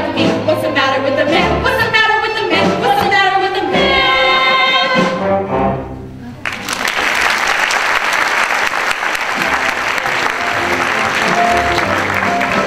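The final held notes of a stage-musical song, women's voices with instrumental accompaniment, ending about five seconds in. After a brief lull, the theatre audience breaks into sustained applause, with music coming back in faintly near the end.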